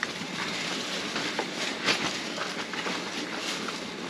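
Pork cutlets frying in hot oil: a steady sizzle with scattered small crackles, the clearest about two seconds in.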